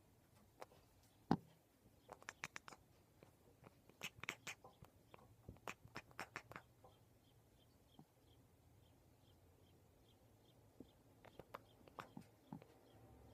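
Tabby cat chattering at a bird outside: several runs of rapid, sharp teeth-and-jaw clicks with short quiet pauses between.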